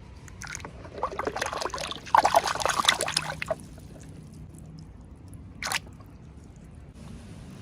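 Packaging being handled and opened, making dense crackling and rustling for a couple of seconds, then one short swish near the end.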